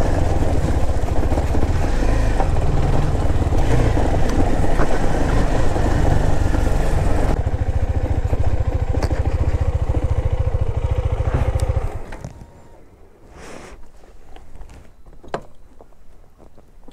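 KTM Duke 390's single-cylinder engine running steadily, then cutting off suddenly about twelve seconds in, leaving only a few faint knocks.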